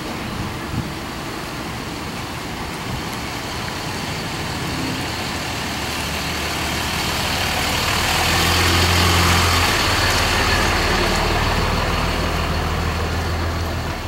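A motor vehicle's engine running with a steady low hum, growing louder to a peak about two-thirds of the way through and then holding steady, over a background of traffic noise.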